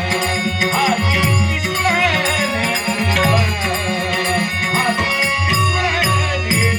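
Dashavatar folk-theatre music: drum strokes whose low pitch falls, with small cymbals keeping a steady beat over sustained melodic tones.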